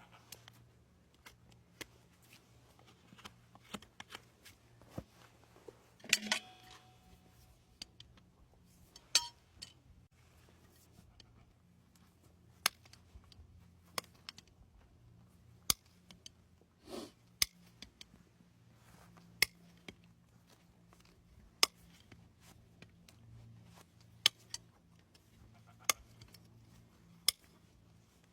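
Hoof trimming tools cutting a horse's hoof: a run of sharp single snaps, scattered at first, then coming about every second and a half, over a faint low hum.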